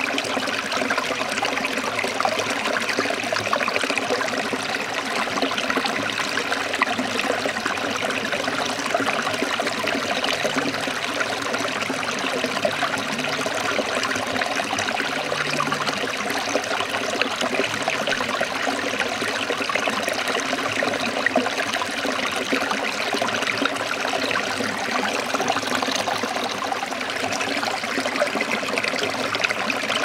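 A small stream trickling and splashing in little cascades over rocks into a shallow pool, a steady, even water sound.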